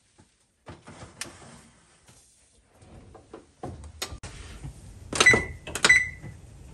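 Light rattling as aluminium foil loaf pans are set onto a wire oven rack, then the oven door shut with a knock about four seconds in. Near the end, the Kenmore range's electronic keypad gives two short, loud beeps as its buttons are pressed to set the baking time.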